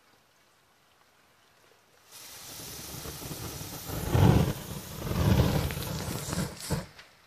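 Rushing whoosh of burning paper flaring up into a large blaze. It starts suddenly about two seconds in, peaks twice and dies away near the end.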